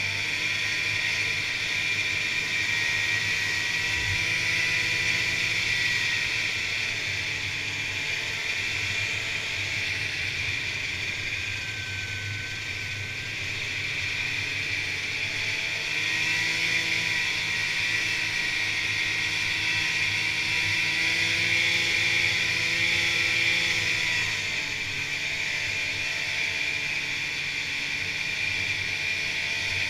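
Polaris Indy snowmobile's two-stroke engine running steadily under way over a constant hiss, its pitch rising and easing off a few times with the throttle.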